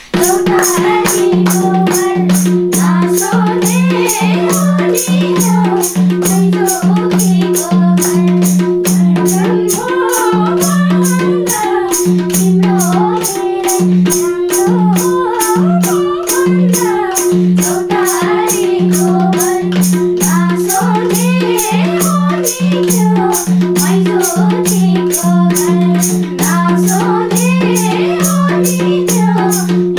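Nepali lok dohori music: singing over a quick, even madal drum beat and a steady held drone.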